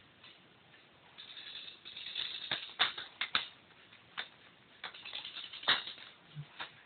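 Airsoft guns firing single shots, heard as about eight sharp clicks at irregular intervals over a rustling crunch.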